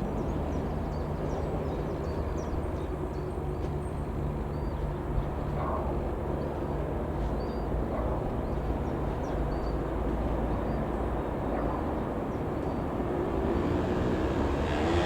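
Beagle B121 Pup 150's single piston engine, a four-cylinder Lycoming, running steadily at low power with a propeller drone; near the end the engine note starts to shift in pitch.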